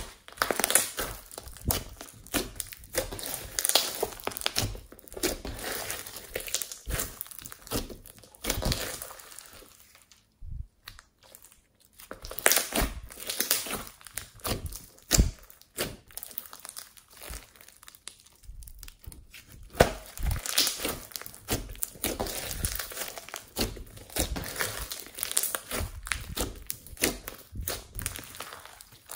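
Glossy slime mixed with beads and glitter being stretched, pressed and kneaded by hand: a dense run of small wet clicks and crackles, which pauses briefly about ten seconds in.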